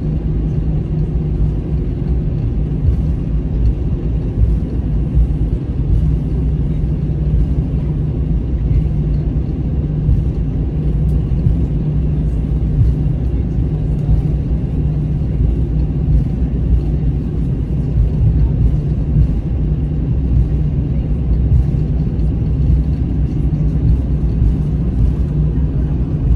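Cabin sound of an Airbus A321 taxiing, its CFM56 turbofan engines at idle: a loud, steady low hum and rumble that holds unchanged throughout.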